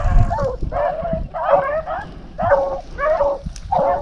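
A pack of rabbit hounds baying on a hot rabbit track, about seven short bays in a row with voices overlapping.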